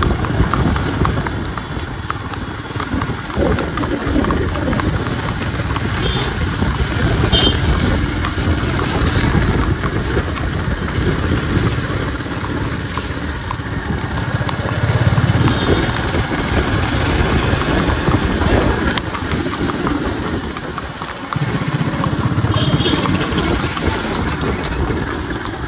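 Motorcycle engine running as it rides along, with a horse's hooves clopping on the paved road ahead.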